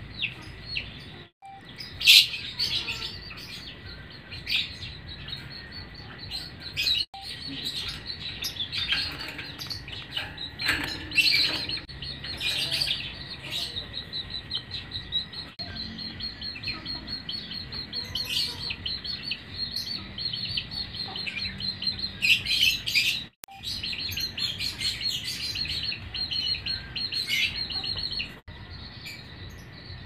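Lovebirds chirping: many short, high chirps in quick runs, with a faint steady high tone underneath.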